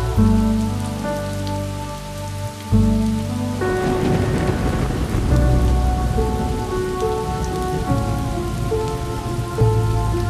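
Steady heavy rain falling on the street, under film score music of sustained chords that change every second or so. A noisy swell comes in about four seconds in and fades over the next couple of seconds.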